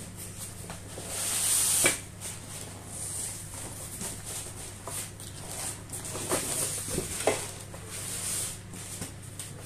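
Polystyrene foam packing and cardboard box rustling and scraping as a tightly fitted item is worked out of its foam insert. The loudest moment is a swelling scrape ending in a sharp knock about two seconds in, followed by scattered lighter knocks and rubs.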